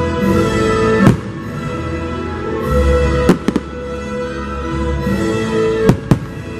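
Aerial firework shells bursting with sharp bangs: one about a second in, a quick cluster of three a little after three seconds, and two close together near the end. The show's music plays beneath them.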